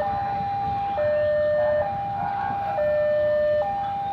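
Railway level-crossing warning alarm sounding a high and a low tone in turn, each held about a second, over the low rumble of a train.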